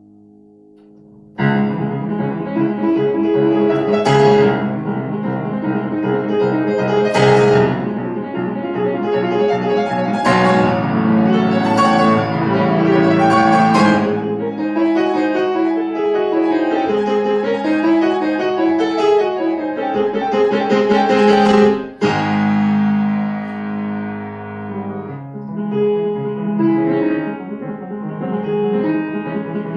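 Grand piano played solo in fast, loud classical passagework. A soft held note gives way to a sudden loud entry about a second and a half in. There is a brief break and a fresh strong attack about three-quarters of the way through.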